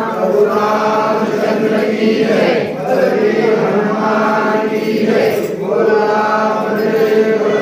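Crowd of worshippers chanting an aarti hymn together in long sustained phrases, with two short breaks between phrases.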